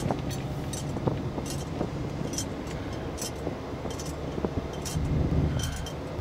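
Steady low hum of a car cabin on the move. Over it come short, sharp ticks every half second or so, typical of windblown sand and grit striking the windshield in a sandstorm.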